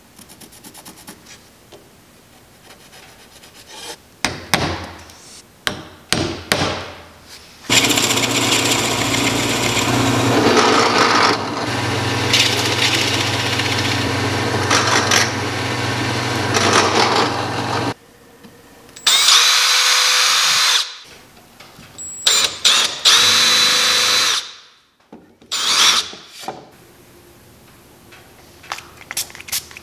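Benchtop drill press running and boring through a plywood jig base for about ten seconds, with a steady motor hum under the cutting noise. Two shorter runs of a whining power tool follow, and a few brief handling noises come before.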